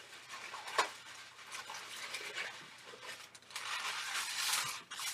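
Latex twisting balloons (260s) rubbing against each other as they are handled and pushed through a twisted balloon, with a sharp click about a second in and a longer rubbing stretch near the end.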